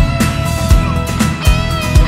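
Background rock music: guitar lines over a steady drum beat of about two thumps a second.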